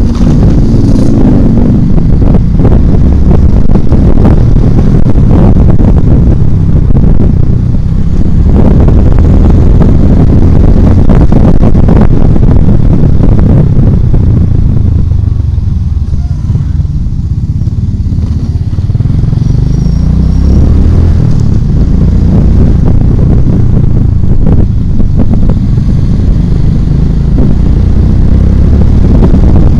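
Motorcycle engine running under way, heard from the rider's seat together with rushing road and wind noise. It eases off around the middle, then picks up again as the bike accelerates.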